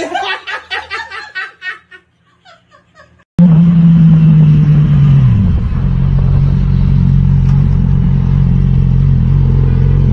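A person's voice for a couple of seconds, then a short hush. Then a sport motorcycle's engine cuts in loud and steady, its pitch dropping a couple of seconds later before holding level, as the bike slows in traffic.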